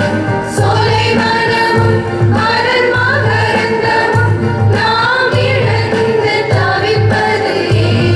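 A group of voices singing a hymn-like song to a steady beat accompaniment, the low pulse about twice a second.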